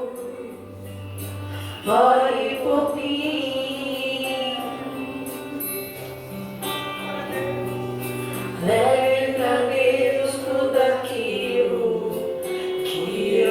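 Gospel song sung with choir-like backing over instrumental accompaniment and a held bass line, new sung phrases coming in about 2 and 9 seconds in.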